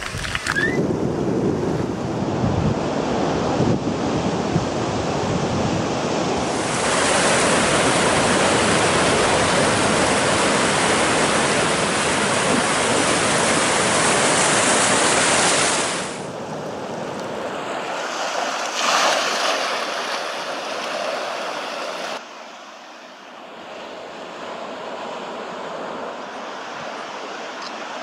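Ocean surf breaking and washing over the shore, with wind on the microphone. The level jumps at several cuts, loudest through the middle stretch and quieter near the end.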